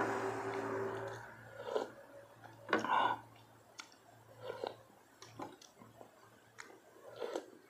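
Close-miked chewing and wet mouth sounds of a person eating golden apple snails with rice, with a few light clicks in between. A louder steady noise fades out in the first second or so.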